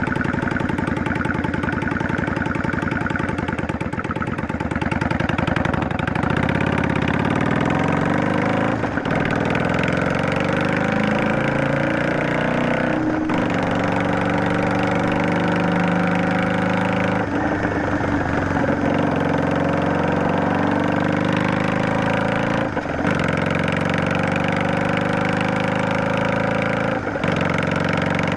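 Yamaha DragStar 400's air-cooled V-twin running through a Garage T&F Vent muffler with inner silencer. It beats slowly at low revs for the first few seconds, then pulls away with the pitch rising and falling. Several brief dips in the sound fall at gear changes.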